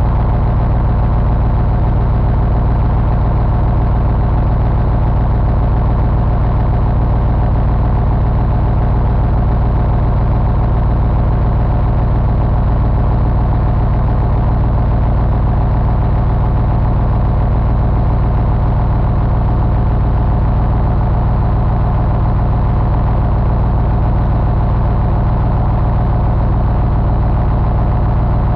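Detroit Diesel 8.2-litre naturally aspirated V8 diesel engine idling steadily, with an even low hum.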